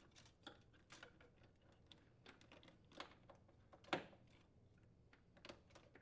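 Faint, scattered clicks of a new refrigerator defrost thermostat and its wire connector being handled and fitted. The sharpest click, about four seconds in, is the thermostat's clip snapping onto the aluminium evaporator tubing.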